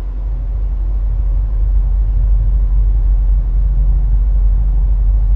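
A steady, loud, deep rumble with nothing higher above it.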